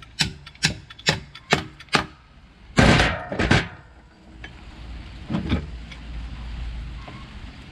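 Hammer blows on wood at a steady rhythm, about two a second, followed about three seconds in by a louder clatter of wood and a single thump.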